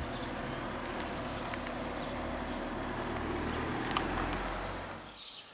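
A car driving slowly up the road and passing close by, a steady engine and tyre noise that swells about four seconds in and then fades away.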